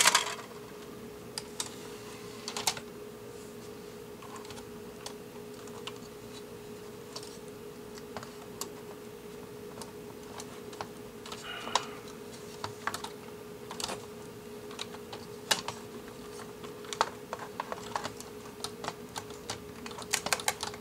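Scattered light plastic clicks and taps as a CD mechanism is handled and fitted back into an under-cabinet CD player's plastic chassis, a sharper click at the start and a quick run of clicks near the end. A steady low hum runs underneath.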